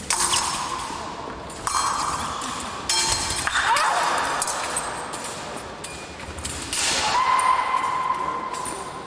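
Épée blades clashing and striking in sudden metallic hits during the exchange. About seven seconds in, the electric scoring machine sounds a steady electronic tone lasting a couple of seconds, signalling a registered touch.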